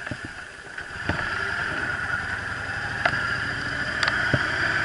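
Yamaha Drag Star 1100's air-cooled V-twin engine running as the motorcycle rides a dirt track, getting louder from about a second in, with a few short knocks.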